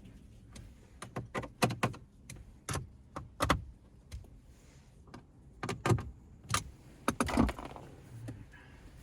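Scattered sharp clicks and knocks, in irregular clusters, of hard plastic parts and small objects being handled inside a pickup truck's cab.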